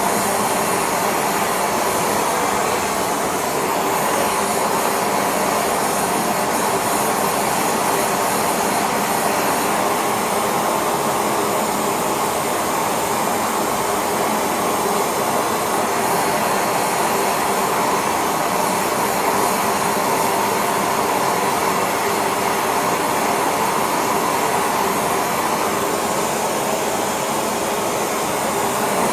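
Steady roaring hiss of a gas burner flame heating metal in a crucible for a casting pour.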